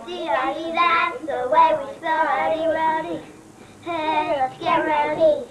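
A young girl singing a tune in phrases, with a short pause a little past the middle.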